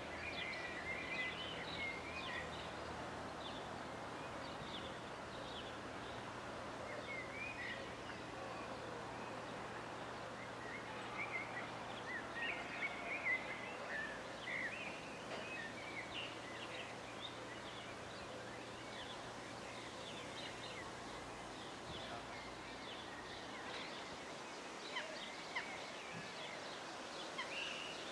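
Small birds chirping and singing in short, scattered calls over a steady outdoor hush, with a faint low hum that fades out near the end.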